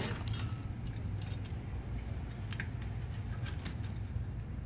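Soft scattered clicks and rustles of plastic ink tubing being handled and fed through a printer's frame, over a steady low hum.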